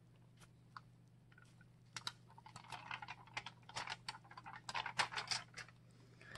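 Crinkling and crackling of aluminum foil and painter's tape as a canvas is pulled up off wet acrylic paint: a few scattered clicks at first, then a dense run of crackles from about two seconds in.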